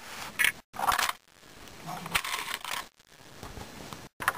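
Hand-operated Lego vending machines being worked: brief plastic clicks and rattles from the mechanisms. Each stretch of sound cuts off abruptly.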